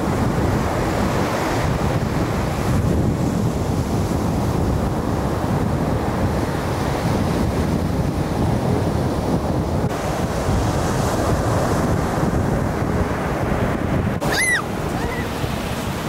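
Sea surf breaking and washing up the beach, a steady rush of water with wind buffeting the microphone. A brief high call cuts in about fourteen seconds in.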